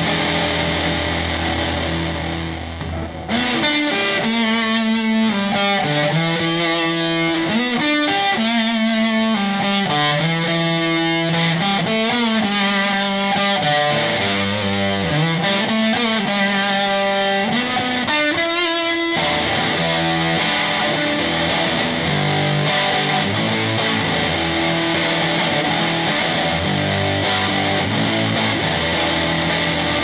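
Electric guitar, a Telecaster Thinline-style partscaster, played through a Yamaha THR5 combo on a fuzz setting with a little reverb, recorded by phone off the amp; the selector is on the middle pickup, then the bridge pickup. A held chord rings and fades, then about three seconds in comes a lead line of single notes with string bends, and past the middle the playing turns to denser chord riffs.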